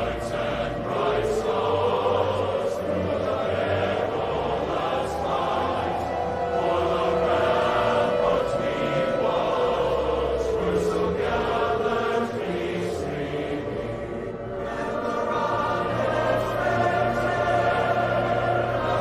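Choral music: massed voices holding long, layered notes, with a tone gliding slowly up and then back down over the first half, and a short dip in the sound about fourteen seconds in.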